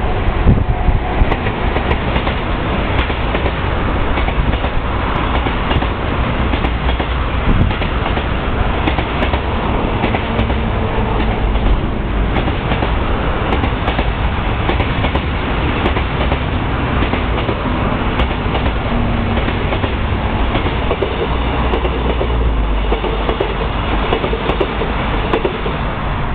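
A JR ED75 electric locomotive goes by near the start, hauling a long container freight train, then the container wagons roll past with a steady rumble and wheel clatter on the rails.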